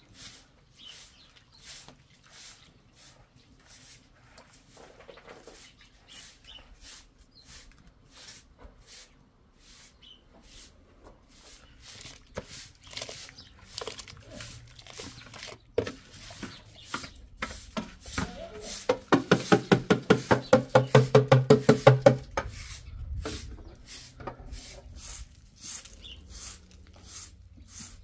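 Soft, regular swishing strokes, first of hands washing rice in a bowl of water and later of a straw broom sweeping a dirt yard. About two-thirds of the way in comes a loud farm animal's call lasting about three seconds, quavering at several pulses a second.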